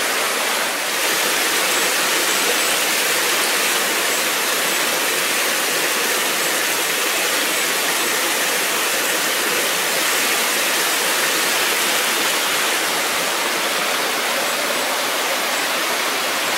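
Creek waterfall pouring steadily: a constant, even rush of falling water.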